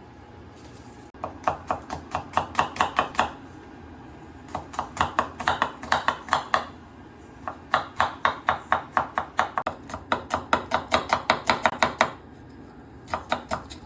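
Knife chopping garlic in rapid, even strokes of about five a second. The chopping comes in runs of about two seconds with short pauses between them: four runs, with a fifth starting near the end.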